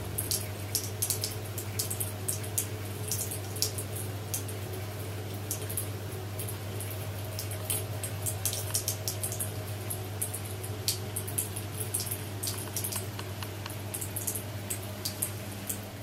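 Thin stream of water from a bathroom mixer tap running into a ceramic washbasin, with irregular small splashes and drips over a steady low hum.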